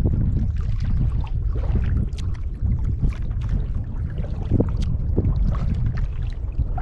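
Wind rumbling on the microphone over the splash and drip of canoe paddle strokes and water lapping at the hull.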